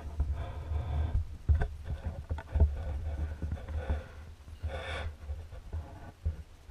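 Muffled underwater sound picked up through a GoPro's waterproof housing: a steady low rumble of water movement with scattered knocks and clicks. Short pitched tones come through about half a second in and again around five seconds.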